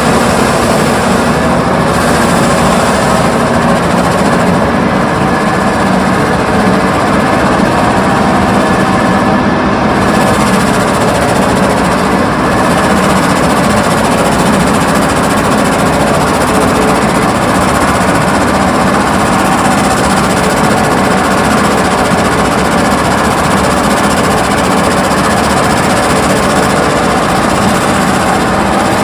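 Excavator's diesel engine running steadily and loudly, with an even mechanical noise and no breaks or heavy impacts.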